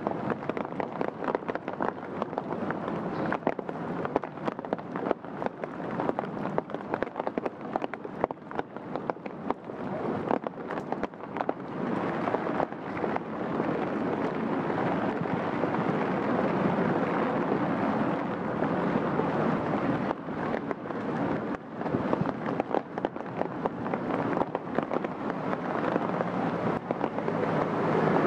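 Steady rain falling, a constant hiss dotted with many close, sharp drop ticks; it grows somewhat louder about halfway through.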